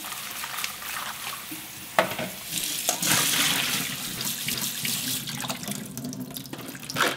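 Kitchen tap running into a stainless steel sink as blanched spinach is rinsed, swished by hand in a bowl and then tipped into a mesh strainer under the stream. The rush of water grows louder about three seconds in, with a sharp knock about two seconds in and another near the end.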